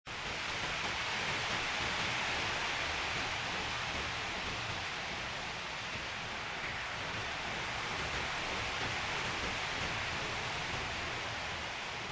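Wind blowing: a steady rushing hiss that starts suddenly out of silence, swelling slightly about two seconds in and then holding even.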